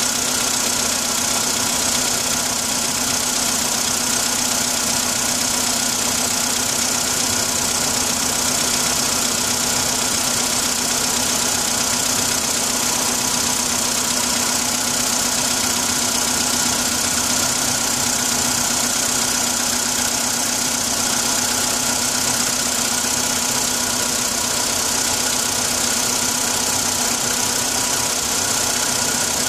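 Engine idling cold, a steady run with a fine rapid knock in it: the knock that shows when the engine is cold.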